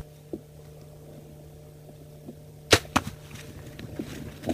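A bow shot at a mule deer buck: two sharp snaps about a quarter second apart nearly three seconds in, the string's release and the arrow striking home. A softer thump follows near the end.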